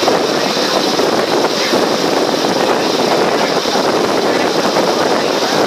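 Steady, loud noise of a motor ferry under way on open water, its engine and the rush of water along the hull blending into one even sound.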